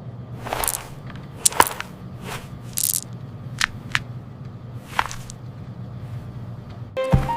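A series of short swishing whooshes, about one a second, over a low steady hum that cuts off near the end.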